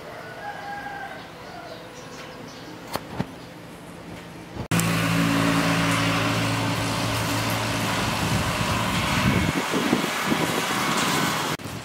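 A quiet stretch with faint chirps, then, after a sudden cut, a motor vehicle engine runs with a steady low hum over a loud rushing noise. The hum breaks up and wavers a few seconds later.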